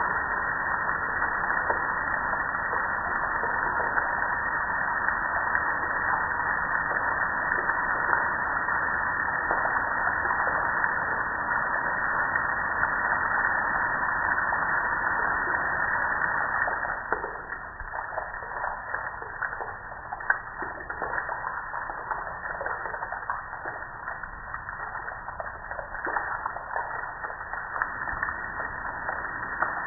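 Water spraying onto a metal gas grill, a steady hissing splatter that drops in level about 17 seconds in, leaving a lighter spatter with scattered taps of drops.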